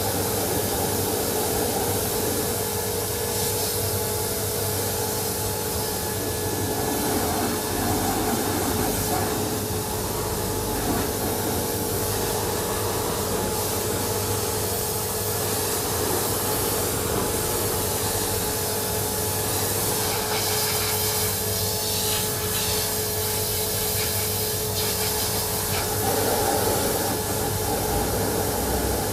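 Hot-water pressure washer lance spraying a truck, a steady hiss of high-pressure water over a constant mechanical hum with a steady tone.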